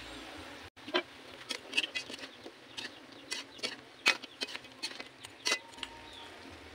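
Metal ladle knocking and scraping against a metal wok while chicken pieces are stirred: a quick run of irregular clinks about a second in that goes on for some four seconds and then stops.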